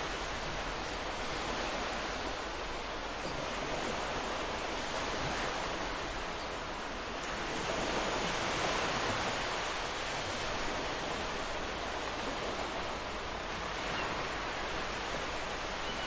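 Ocean surf breaking and washing on the beach, a steady rushing hiss that swells as a wave comes in about halfway through.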